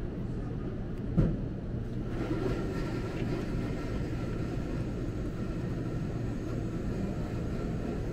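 Steady low rumble of indoor room ambience in a bookstore café, with a faint murmur in the background and a single thump about a second in.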